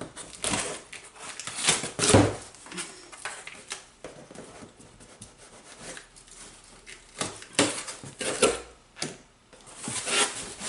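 A cardboard box being opened and its contents handled: irregular rustles and knocks, loudest about two seconds in and again around eight seconds.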